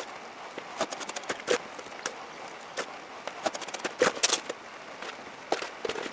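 Irregular scraping and tapping of a scoop working wet refractory mix into the forge shell: many short clicks and scrapes at uneven intervals, with a cluster of louder ones about four seconds in.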